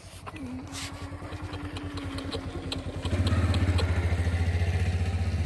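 An engine running with a fast, even pulsing beat, getting louder about three seconds in.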